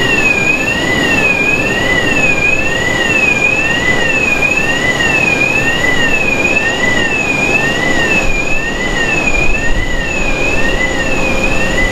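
Passenger boarding bridge's movement warning siren: a two-tone electronic warble rising and falling about three times every two seconds, sounding while the bridge drives back from the aircraft door. A steady broad noise of aircraft and apron equipment runs underneath.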